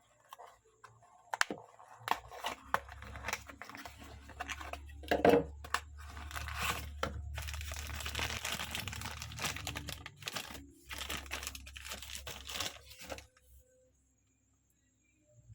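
Toy packaging being torn open and crinkled by hand, with irregular rustling and sharp clicks for about thirteen seconds. The sound then stops, leaving near silence.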